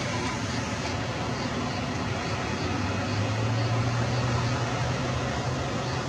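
Steady rushing noise of a tidal bore's breaking, foaming wave front advancing up the river, with a low steady hum joining about three seconds in.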